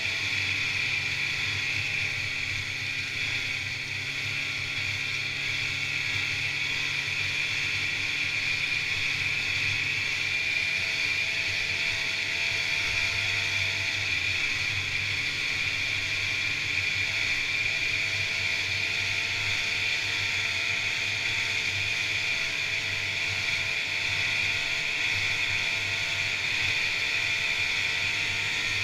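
1986 Polaris Indy Trail 488 fan-cooled two-stroke snowmobile running steadily at trail speed, engine and track droning with a steady high-pitched whine over it.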